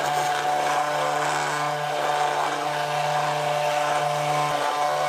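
KitchenAid 2-speed hand blender running on speed 2 in its beaker, its motor giving a steady hum with a whine as the blade churns thickening mayonnaise. A little resistance in the motor's sound is the sign that the mayonnaise is done.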